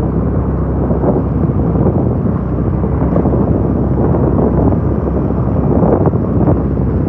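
Wind buffeting the microphone of a moving scooter, a steady rumble over the scooter's engine and tyre noise.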